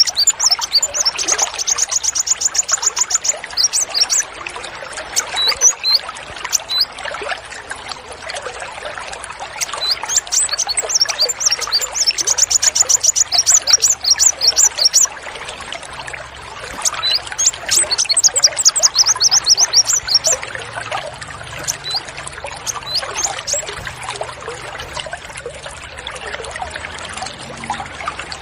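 Small songbirds giving rapid high-pitched trills of repeated notes, in three long runs with scattered chirps between, over steady trickling running water.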